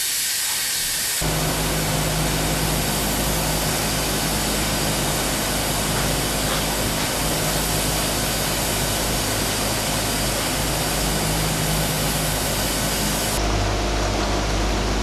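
Steam hissing steadily from a steam-heated old-comb wax press, with a low steady hum underneath. The sound changes abruptly about a second in and again near the end.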